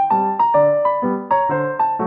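Background piano music: a gentle melody over soft chords, with notes struck about four times a second.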